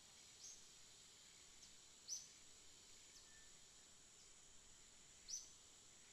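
Faint ambience of a steady high insect drone, with short, high, falling bird chirps. Three chirps stand out, about half a second, two seconds and five seconds in, and the one at two seconds is the loudest.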